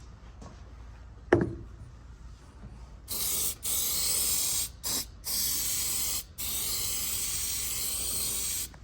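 Aerosol can of Frigi-Fresh cabin-filter deodorizer spraying onto a new cabin air filter in several hissing bursts with short breaks, the last one the longest. A sharp click comes about a second in, before the spraying starts.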